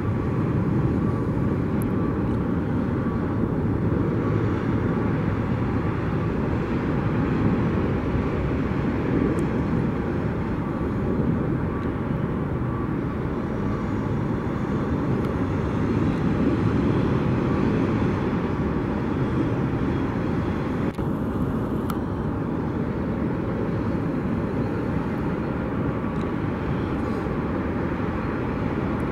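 Airbus A330-243's Rolls-Royce Trent 700 jet engines heard as a steady, low-pitched rushing noise while the airliner lands and rolls out along the runway.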